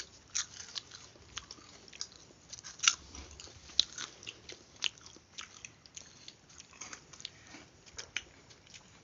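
People biting and crunching crisp snacks, popcorn and fried chips, a run of sharp, irregular crunches with quieter chewing in between, the loudest about three seconds in.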